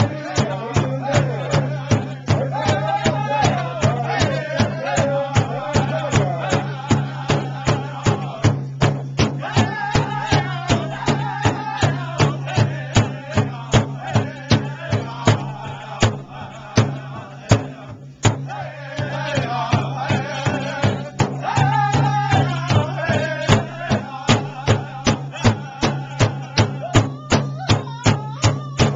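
A powwow drum group singing in unison around a large shared drum, the sticks striking a steady beat of about three strokes a second. The voices drop out for a couple of seconds past the middle while the drum keeps going, then come back in.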